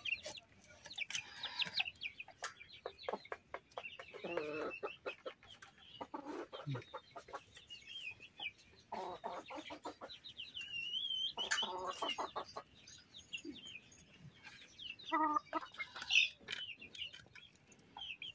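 Chickens clucking in several short bouts, with small birds chirping high above them and light clicks of bottle gourd being sliced on a curved hand-held blade.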